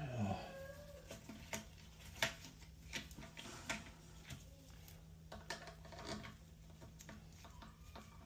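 Faint scattered clicks and light knocks of plastic toilet-seat mounting hardware being handled and fitted. A brief sliding vocal sound comes at the very start.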